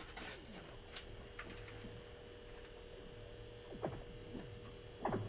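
Low steady electrical hum with a few faint clicks and rustles of hands at work.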